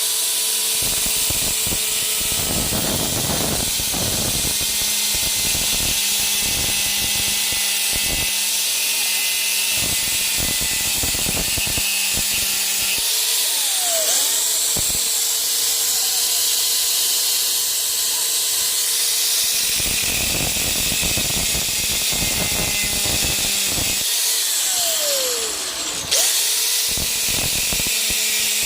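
Bosch GSR 120-LI cordless drill running steadily with a whine. Its pitch dips and climbs back up twice, about halfway through and near the end, as the motor slows and spins up again.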